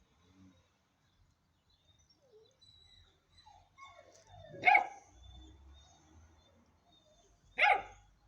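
Hanoverian scent hound puppy, ten weeks old, barking twice, about three seconds apart, with a few thin whines just before the first bark.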